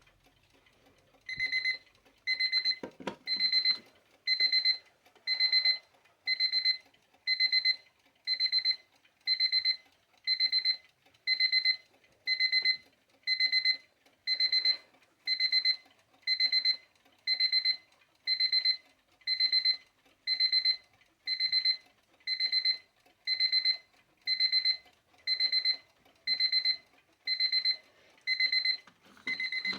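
Westclox quartz travel alarm clock's alarm going off: a high-pitched electronic beep repeating evenly about once a second, starting about a second and a half in.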